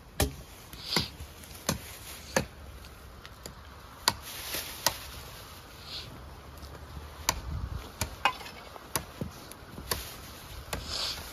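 Sharp wooden knocks and cracks at irregular intervals, about a dozen in all, with a few brief rustles of a plastic bag in between.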